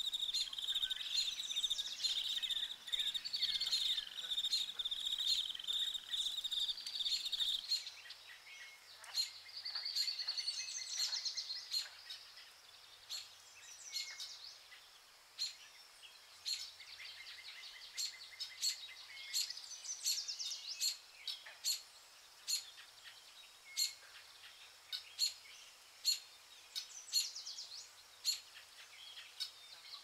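Tropical rainforest ambience. A steady, high insect drone cuts off suddenly about a quarter of the way in, leaving scattered bird chirps, trills and short calls over a faint background.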